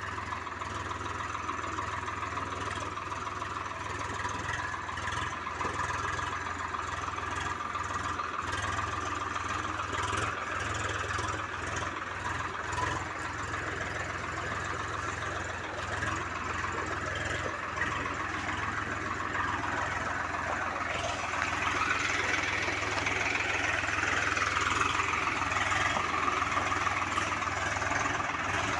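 Swaraj 735 FE tractor's three-cylinder diesel engine running steadily as it hauls a loaded trailer, growing louder and shifting in pitch during the last several seconds as it comes close.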